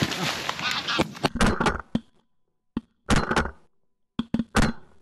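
Shotgun shots at flying geese, picked up by a gun-mounted camera: a string of sharp thumps, several close together, separated by sudden dead silences.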